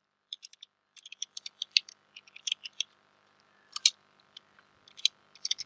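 Typing on a computer keyboard: irregular runs of short key clicks, starting about a second in.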